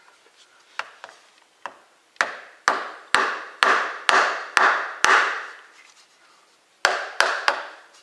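Sharp knocks of a putty knife being driven into the glue joint between a turned cedar piece and its glue block on the lathe, breaking it loose. About a dozen strikes, each with a short ringing tail: a few light ones, then a run of harder ones about two a second, a pause of under two seconds, and three more quick ones near the end.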